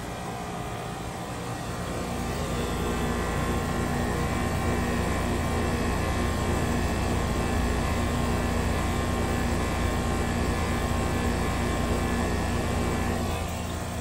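Steady mechanical drone with a low hum under it, growing louder about two seconds in.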